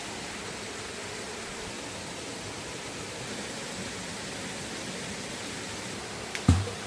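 Steady rush of flowing river water. A single dull thump sounds once near the end.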